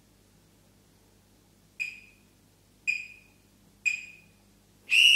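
Workout interval timer counting down: three short beeps about a second apart, then a longer beep beginning near the end, marking the end of the hold interval.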